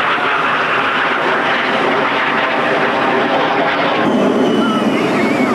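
Steady loud din of a crowded wave pool: churning water and many voices blended together, with a few high shouts and shrieks from children after about four seconds.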